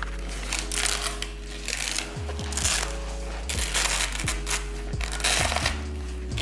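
Background music with a steady beat. Over it come irregular rustling and scraping noises from hands working plates into the nylon pockets of a weight vest.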